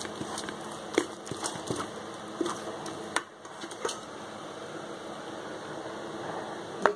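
A plastic spoon pressing and scraping mashed lychee pulp in a strainer to squeeze out the juice: scattered soft knocks and scrapes over the first four seconds, then only a faint steady hiss.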